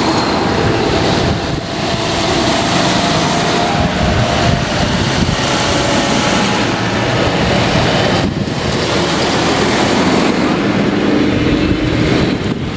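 Large farm tractors driving past close by one after another: steady diesel engine noise and tyre rumble, loud throughout with brief lulls between machines. Near the end, cars following the tractors come past.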